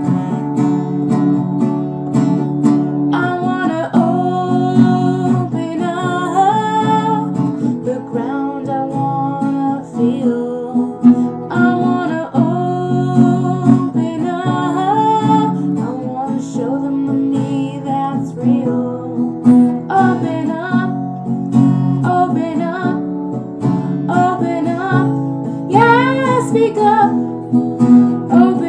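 Music: strummed acoustic guitar with a melodic lead line gliding above it, possibly wordless vocals.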